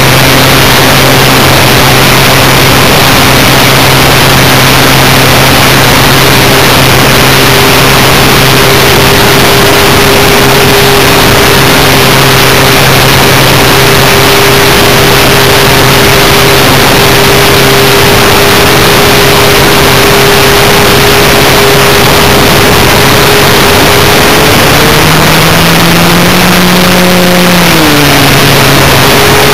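Onboard sound of a radio-controlled Cessna Skywagon model in flight: loud rushing wind and propeller noise on the microphone over the motor's steady hum. Near the end the motor's pitch rises, then dips and settles again.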